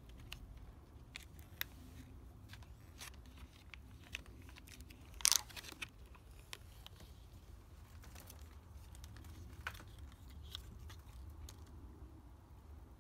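Plastic blister pack of a Broadline spot-on applicator being handled and peeled open: scattered light clicks and crinkles, with one louder tearing crackle about five seconds in.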